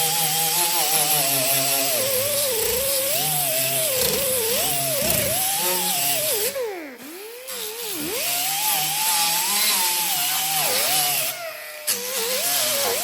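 Power grinder grinding down cured fiberglass resin and mat. The motor's pitch keeps sagging and recovering as it is pressed into the work, over a steady grinding hiss. It winds down sharply about seven seconds in and stops briefly about eleven seconds in, then picks up again.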